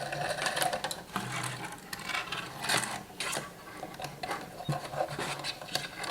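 Hanging wire being fitted to the back of a painting panel: rapid, irregular clicking, scraping and rattling of metal wire and hardware.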